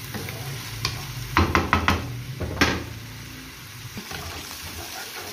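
A metal spatula stirring chicken in yogurt masala in a frying pan over high heat, the masala sizzling. A quick run of about five scrapes and knocks against the pan comes about a second and a half in, and one more follows about half a second later.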